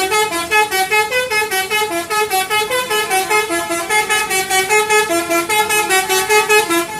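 Bus 'telolet' horn: a multi-tone horn playing a rapid melody of short notes, about four a second.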